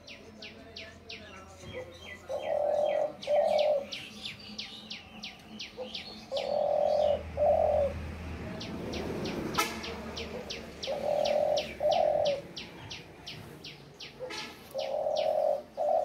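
Dove cooing: a two-part coo, a longer note then a shorter one, repeated four times about four seconds apart. A small bird chirps in quick high series between the coos.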